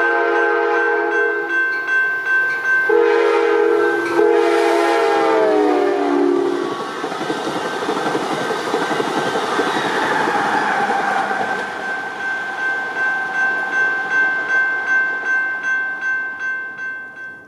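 Amtrak Cascades passenger train passing. Its locomotive's multi-note air horn gives two blasts; the second is long, and its pitch drops as the locomotive goes by. The wheels then rumble and clack rhythmically over the rail joints until the sound cuts off near the end.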